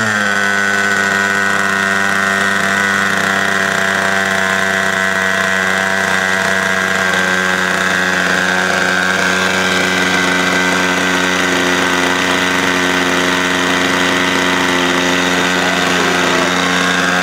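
Glow-plug model airplane engine running steadily, settling to a slightly lower speed right at the start and then holding an even, buzzing note.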